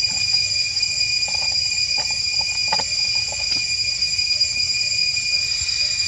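Steady, high-pitched insect drone of tropical forest, holding several pitches at once. A few soft clicks and brief squeaks come between about one and three and a half seconds in.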